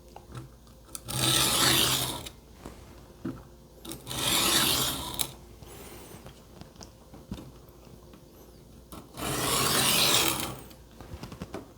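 A kitchen knife blade scraped across the coarse stone of a Work Sharp Benchstone sharpener wetted with sudsy water: three separate sharpening strokes about a second long each, with quiet between them. It is the first, rough-grit stage of sharpening a dull, cheap blade.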